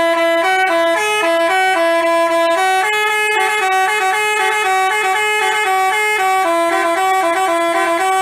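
Telolet basuri bus horn playing a tune: an unbroken run of held, horn-like notes hopping between a few pitches.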